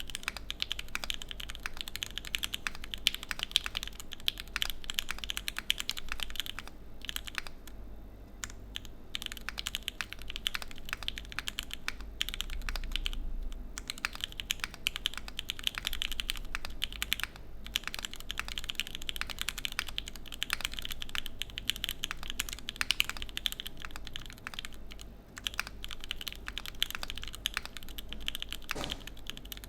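Typing on a Typ60 SL mechanical keyboard with stock Gateron Pro milky-top switches, a full carbon-fibre plate, O-ring gasket mount and PBT keycaps: a fast run of keystrokes with a couple of short pauses.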